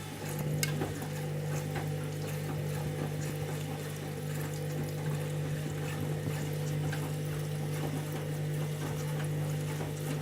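Candy washing machine filling with water: water rushing into the drum over a steady electric hum, which cuts off at the very end.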